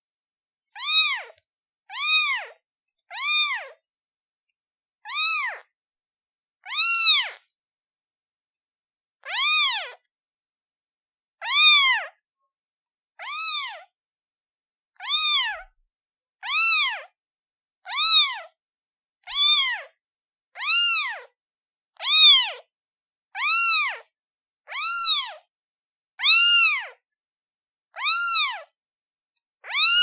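A day-old kitten meowing over and over, calling for its mother: short, high-pitched mews about one every second and a half, each rising then falling in pitch, with a slightly longer pause once early on.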